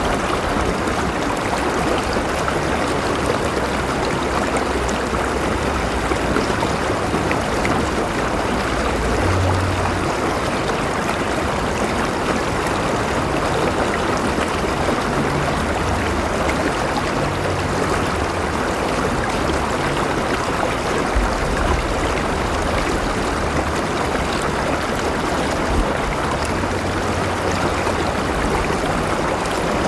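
A river running steadily over rocks: a continuous rush of water with trickling and gurgling, and a low rumble that swells and fades now and then.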